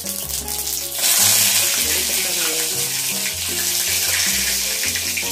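Fresh curry leaves dropped into hot oil with mustard seeds and asafoetida, bursting into a loud sizzle about a second in that carries on steadily; background music plays underneath.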